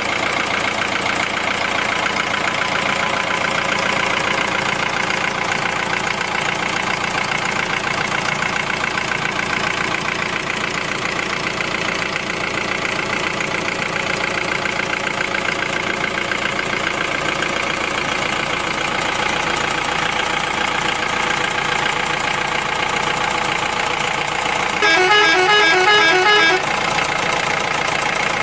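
Truck engine sound idling steadily. Near the end a vehicle horn sounds for about a second and a half, warbling and louder than the engine.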